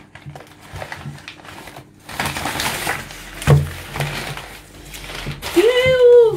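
Sheets of paper rustling and crinkling as they are pulled off a live mud crab, with a thump about halfway through. Near the end a person makes a short held voice sound.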